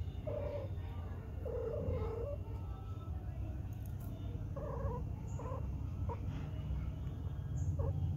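Cat giving about six short, low cries, the second, about two seconds in, the longest, over a steady low hum.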